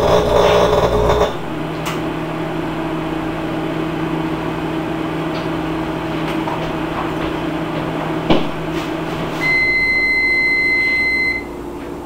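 Microwave oven running on high with a loud steady hum that drops to a quieter hum a little over a second in. A sharp click comes just past eight seconds, then a single long beep of about two seconds as the cooking cycle ends.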